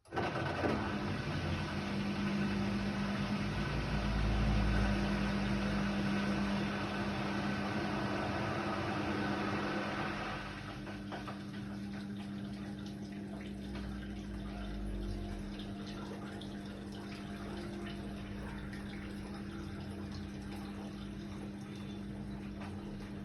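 Indesit WIDL 106 washer-dryer moving water: a rush of water with a steady hum starts suddenly. About ten seconds in the rush eases while the hum carries on.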